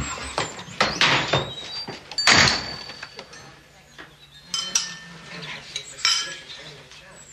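Several sharp knocks and clatters in the first couple of seconds, then china teacups and cutlery clinking lightly now and then.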